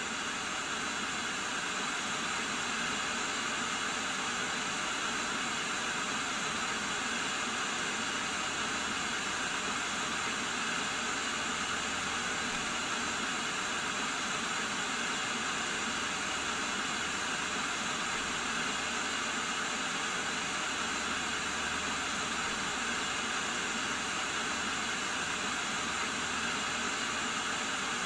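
Steady hiss of television static from a TV showing snow with no signal.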